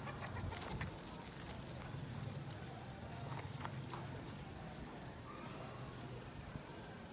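Goats moving about: scattered light hoof taps and clicks over a low steady hum.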